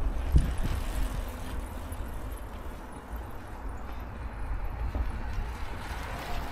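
Low rumble of passing road traffic, with a slight swell near the end.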